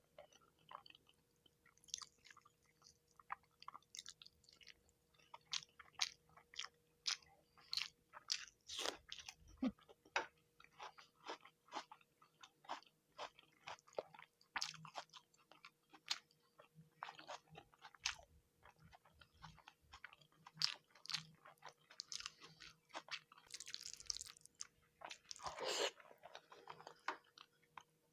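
Close-miked chewing of fish curry and rice: a string of short, irregular, wet mouth clicks, with a louder, longer sound near the end.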